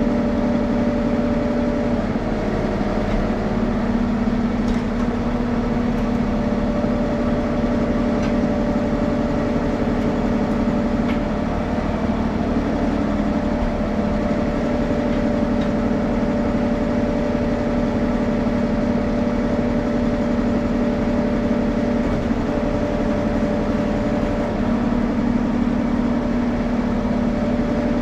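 Engine running steadily at an unchanging pitch, with a few faint clicks over it.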